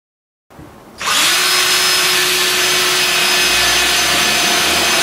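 Cordless drill running at a steady speed as it is pressed into a wooden false keel strip on a boat hull, starting about a second in.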